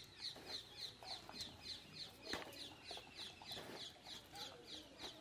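A bird peeping steadily, a short high falling note repeated about three to four times a second. There is a single faint click about two seconds in.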